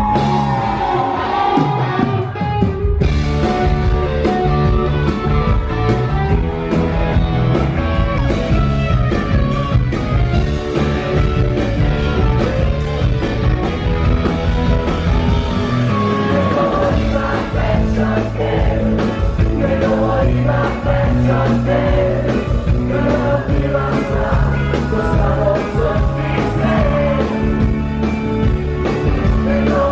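Rock music with a singing voice, a band playing steadily throughout.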